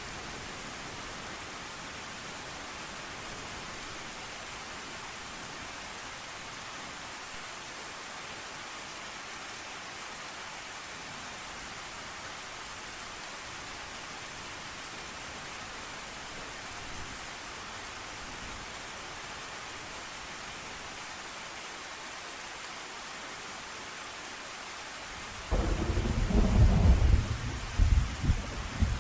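Steady rain hissing, then near the end a sudden loud clap of thunder that rumbles and crackles on.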